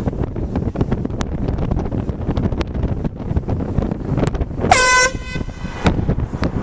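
Air horn giving one short, loud blast about two-thirds of the way in, over a low rumble of background noise.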